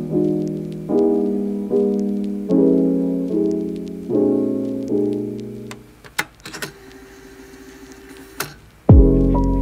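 Background piano music: chords struck roughly every second, each one dying away. About six seconds in the music drops out to a faint stretch with a few clicks, then comes back louder with a deeper bass near the end.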